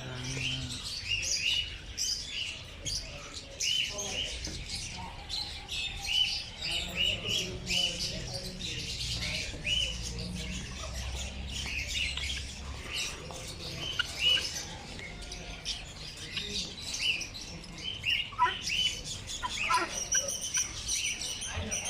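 Many caged birds chirping in short, quick, repeated calls that overlap without a break, over a low background rumble.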